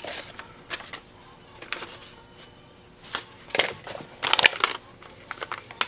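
Rustling and crinkling of packaging as small sewing machine parts are unpacked by hand, in short irregular bursts, loudest from about three and a half to four and a half seconds in.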